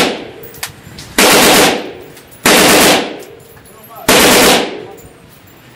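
Short bursts of fully automatic rifle fire in an indoor range. The tail of one burst fades at the start, then three more bursts follow, each about half a second long and loud enough to distort, each echoing off the range.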